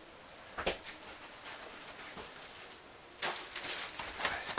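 A plastic-sleeved packet crinkling and rustling as it is slid across a tabletop, in a cluster of crackly bursts near the end. This follows a single light knock about a second in.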